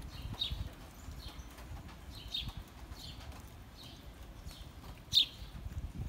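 Sparrows chirping: short, high chirps repeated about once a second, with one louder chirp near the end, over a low rumble.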